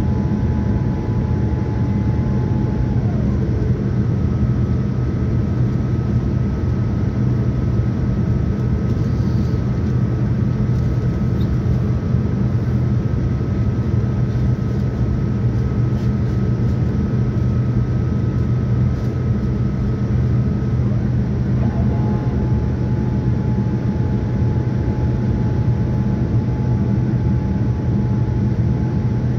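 Boeing 787-9 cabin noise on descent, heard from a seat over the wing: a steady roar of engines and airflow with a low hum. A thin engine whine glides down and fades about three seconds in, a higher whine holds through the middle, and the lower whine returns about seven seconds before the end.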